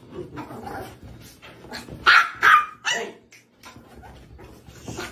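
A dog barking: two loud barks about two seconds in, then a third, with quieter barks and yips around them.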